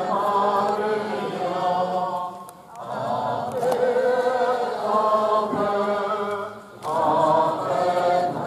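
A crowd of people singing a Marian hymn together in unison, in phrases of about four seconds with short breaks about a third of the way in and again near the end.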